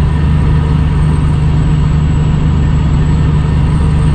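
Cummins ISX diesel engine of a 2008 Kenworth W900L semi truck running under way at a steady road speed: a constant low drone with no gear change or grind.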